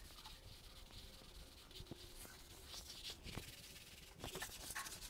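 Faint swishes of a cloth wiping glazed ceramic wall tiles, a few short strokes.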